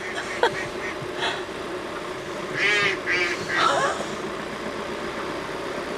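A flock of ducks quacking on and around a road, with a cluster of louder quacks around the middle, over the steady hum of an idling campervan engine.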